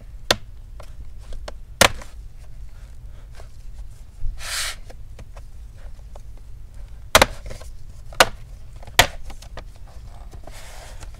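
Scattered sharp clicks and taps of a metal pry tool working under the edge of a laptop's bottom panel, with a short scrape about halfway through. The panel stays stiff and won't come free, held by a hidden screw.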